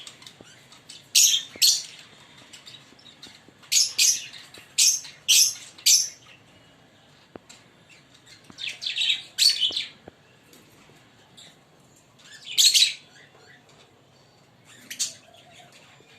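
Fischer's lovebirds giving sharp, high-pitched chirps in short clusters with pauses between them: a pair of chirps a second or so in, a quick run of five or six around four to six seconds, a few more near ten seconds, a longer call at about twelve and a half seconds, and a single chirp near the end.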